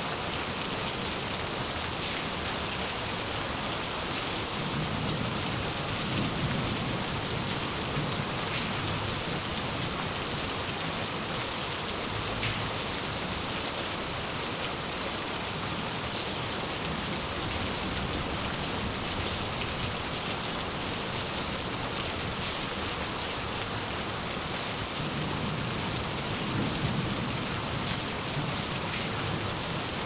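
Steady rain falling, with distant thunder rumbling low twice: about five seconds in and again near the end.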